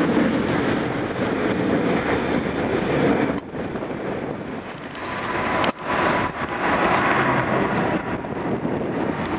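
Jet engines of a twin-engine widebody airliner climbing out after takeoff: a steady, dense roar. It drops quieter from about three and a half seconds in and comes back up about six seconds in.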